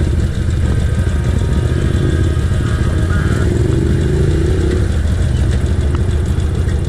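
Cruiser motorcycle engine idling with a steady low rumble. Partway through, another engine briefly rises in pitch nearby.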